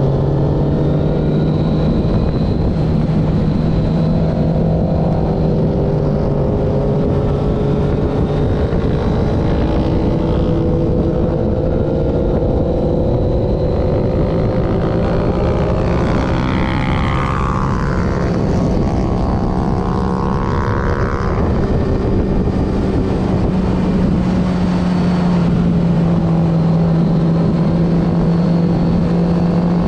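1995 Honda CBR900RR's inline-four engine running hard at speed, its note climbing slowly through the first half as the bike pulls down the straight, over a steady rush of wind noise.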